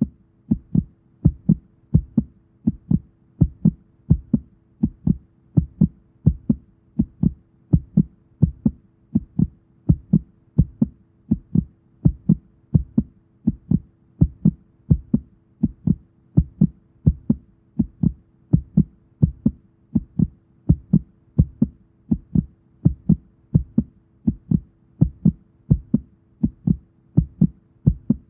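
A fast heartbeat: low, evenly spaced thumps at about two a second, over a faint steady hum.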